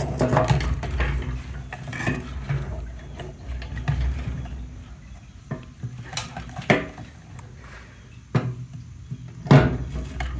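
Scattered clicks, knocks and clinks of hard parts being handled and pried as a car's fuel pump is worked loose from its fuel tank.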